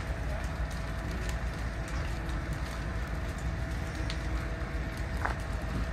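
A burning house: steady crackling with scattered sharp pops, over a continuous low rumble.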